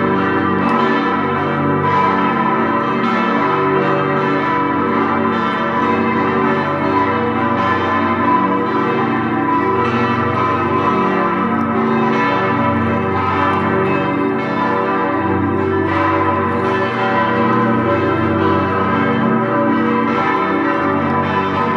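Full peal of six Grassmayr-cast church bells tuned G, A, B, D, E and G, the largest about 5.8 tonnes, all ringing together. The overlapping strikes merge into one continuous, dense wash of deep and bright bell tones.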